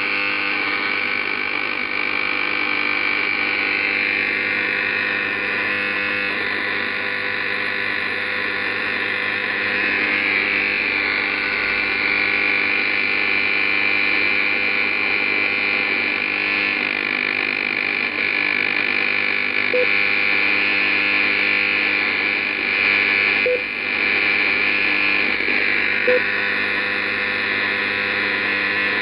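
Steady hiss and buzz of radio interference noise from an Icom IC-756PRO transceiver's speaker, received in AM around 58 MHz while the dial is tuned, with steady hum tones underneath. It stays the same as the frequency changes, which marks it as a raised noise floor rather than a signal, with a few faint pips in the second half.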